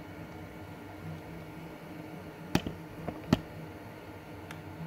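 Selpic Star A mini 3D printer running a print, its stepper motors humming in a steady, pulsing drone as the print head moves over the bed laying filament. A few sharp clicks stand out between about two and a half and three and a half seconds in.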